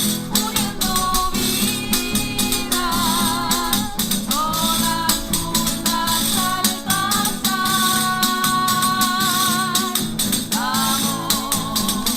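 A cueca sung with guitar accompaniment, long vibrato-laden sung notes over a busy rattling percussion beat from tambourine-like jingles.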